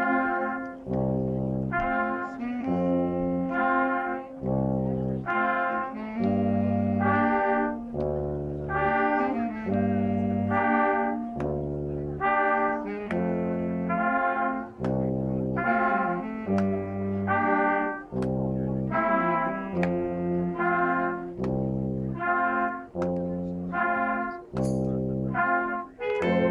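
A youth concert band of clarinets and brass, with a tuba, plays a piece in short phrases with brief breaks, over a bass line of separate low notes.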